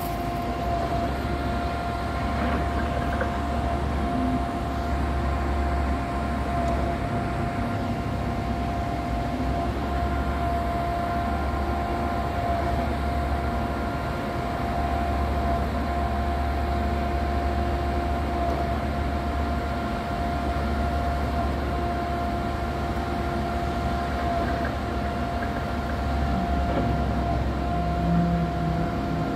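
Steady drone of diesel construction machinery running, with a low hum and a constant high whine held on top.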